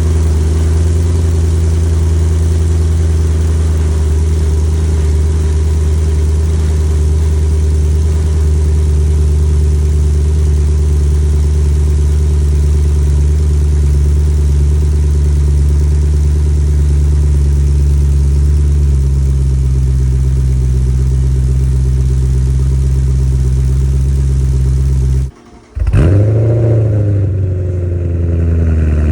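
BMW E90 M3's S65 4.0-litre V8 idling steadily through a stainless steel valved axle-back exhaust, the idle dropping slightly about two-thirds of the way through. Near the end the sound cuts out for a moment, then the engine is blipped once and settles back to idle.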